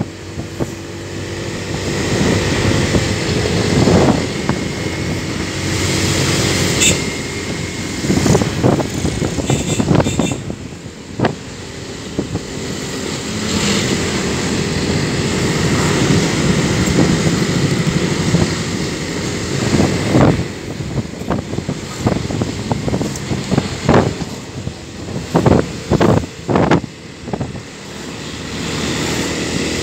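A vehicle's engine running as it travels along a road, under heavy wind buffeting on the microphone, with other traffic passing close by. The engine swells and fades a few times, and several sharp buffets or knocks come near the end.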